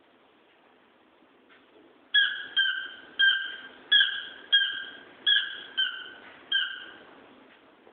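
Squeaky pet toy squeezed repeatedly by a dog chewing on it: eight sharp squeaks in a row, starting about two seconds in, each fading quickly.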